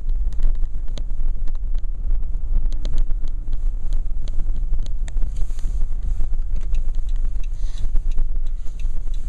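A car driving, heard from inside: a strong, steady low rumble of the ride, shaking over a rough road, with scattered small clicks and knocks throughout.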